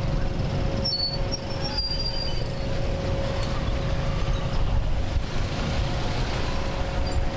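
Steady low rumble of a running engine with a constant hum over it.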